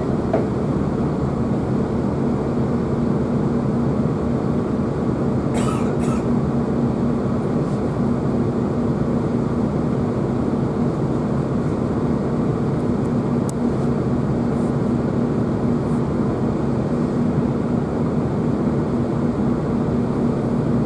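Cabin noise inside a GWR Class 165 diesel multiple unit on the move: the steady drone of its underfloor diesel engine and wheels on the rails. A brief sharp noise comes about six seconds in.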